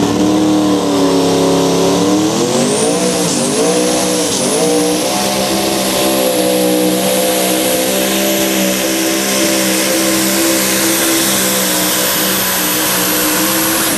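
Modified pulling tractor's engine revving up and down several times at the start, then running flat out at a steady high pitch under load as it pulls the sled. A thin high whine rises early on and holds over the engine.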